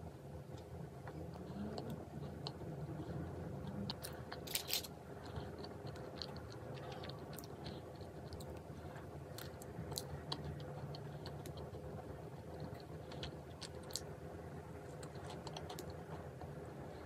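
A person eating, with chewing and scattered small crunches and clicks. The sharpest click comes a little under five seconds in.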